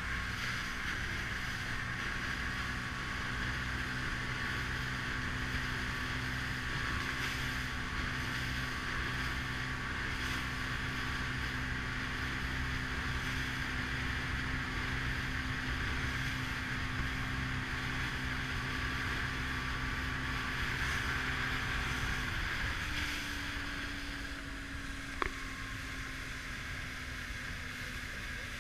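Motorboat engine running steadily underway, with water rushing past the hull and wind on the microphone. About three-quarters of the way through, the engine note shifts and the overall sound drops slightly; a single short click follows soon after.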